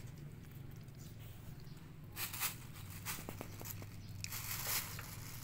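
A thin plastic bag crinkling in a few short rustling bursts in the second half as a kitten paws and steps on it, over a steady low hum.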